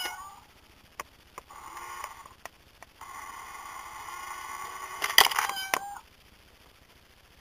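Itazura cat coin bank's small electric motor whirring in two spells as the toy cat pops out of the box and its paw sweeps the coin in, with clicks of the mechanism. It ends with a loud clack as the lid snaps shut, followed by a brief squeaky tone.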